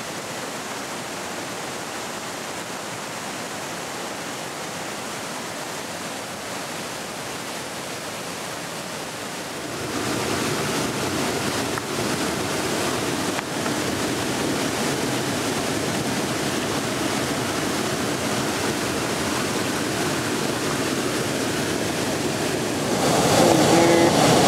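Steady rush of a waterfall and its creek, an even noise with no breaks. It gets louder about ten seconds in and again near the end.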